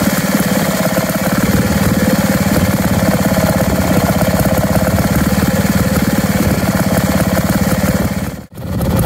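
Two-stroke Lister stationary engine running steadily on its first run, a fast even beat of firing strokes. The sound drops out for an instant near the end, then picks up again.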